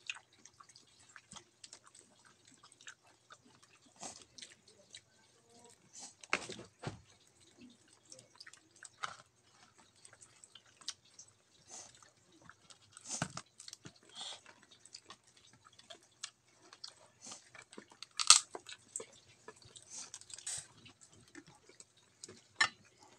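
Cooked shrimp being peeled by hand and chewed close to the microphone: a run of small crackling clicks from shell and chewing, with a few sharper, louder cracks scattered through.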